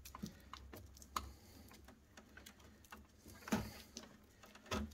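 Small scattered clicks and taps from a screwdriver and fingers working in an inkjet printer's printhead carriage, with two louder knocks about three and a half seconds in and near the end.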